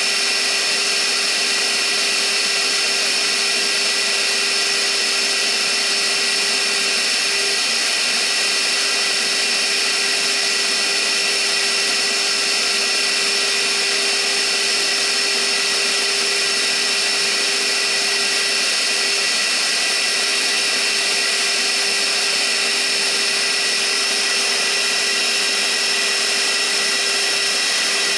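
CNC milling machine spindle running steadily while a small cutter engraves lettering into a wooden base, a constant high whine over the hiss of cutting.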